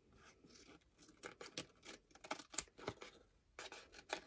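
Scissors cutting through a sheet of paper, a run of faint, short snips with the paper rustling.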